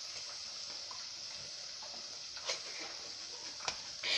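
Onion, garlic, ginger and green chilli with soy and tomato sauce sizzling steadily in hot oil in the pan, with a few light taps of a spoon against the pan.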